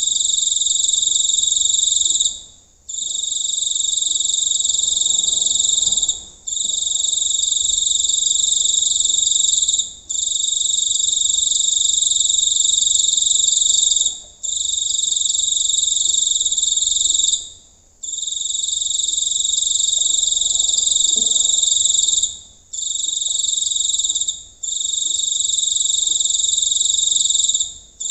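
A large field cricket singing close by: a loud, shrill, continuous trill delivered in long phrases of a few seconds each, broken by short pauses about eight times.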